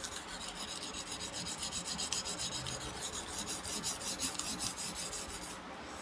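Knife blade being stroked back and forth on a small Buck natural sharpening stone used with water: a steady rasping scrape in quick, even strokes that stops shortly before the end.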